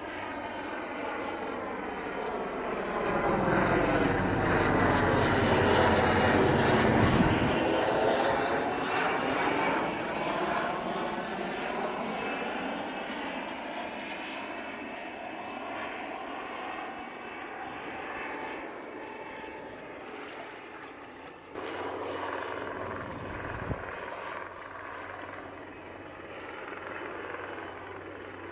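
Mosquito XET single-seat turbine helicopter flying past. A high turbine whine falls slowly in pitch as the engine and rotor noise swell, loudest a few seconds in, then fades away. The noise rises again sharply about two-thirds of the way through.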